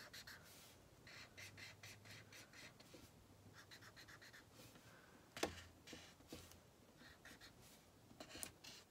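Faint scratching of a felt-tip marker drawing short, thick strokes on paper, with one sharper tap about five and a half seconds in.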